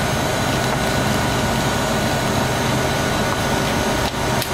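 Frozen-drink (slushie) dispensing machines running: a steady mechanical hum with a constant tone, with a faint click about four seconds in.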